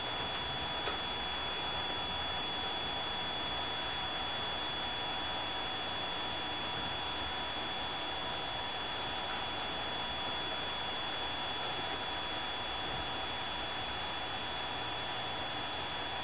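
Steady, even hiss with a faint constant high-pitched whine running through it; no bird calls stand out.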